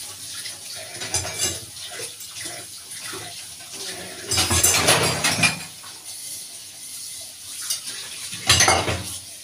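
Tap water running into a steel kitchen sink while metal pots and a gas-stove burner grate are rinsed by hand, with clinks of metal. Two louder spells of splashing and clatter, about four seconds in and near the end.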